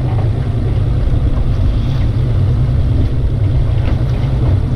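Steady low rumble of wind buffeting the microphone on an open boat in choppy sea.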